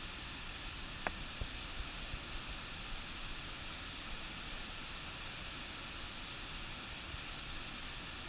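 Steady rushing outdoor noise, with a sharp click about a second in and a few soft knocks after it.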